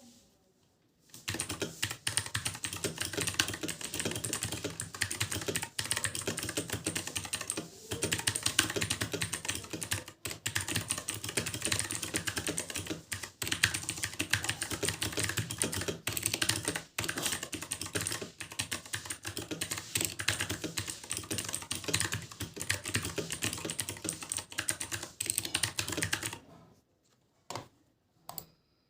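Fast, continuous typing on a Redragon Kumara mechanical keyboard with blue switches: a dense, very loud stream of clicky keystrokes. It starts about a second in, breaks for a few short pauses, and stops a couple of seconds before the end, followed by a few single key presses.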